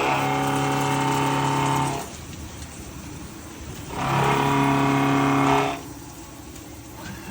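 Milling cutter cutting the flight of a compression screw for a rice husk press: two cutting stretches of about two seconds each, a steady pitched hum with many overtones, with quieter machine running between them.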